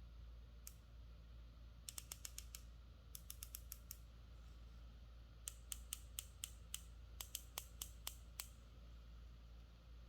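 A small mechanism clicking: a single click, then four quick runs of five or six sharp clicks each, about eight a second.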